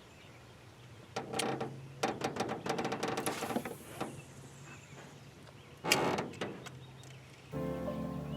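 Fishing reel handling during a cast and retrieve: clicks and short runs of gear rattling, with a brief hiss of line going out. Soft ambient music comes in near the end.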